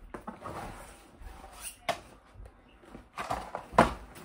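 Rummaging through a school backpack: rustling and handling noises with a few sharp knocks and clicks as things are moved about, the clearest about two seconds in and just before the end.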